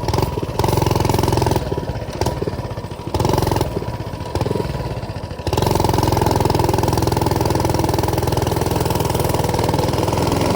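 Mini bike's small engine running, the throttle opened and backed off unevenly for the first five seconds or so, then held open at a steady, louder pitch.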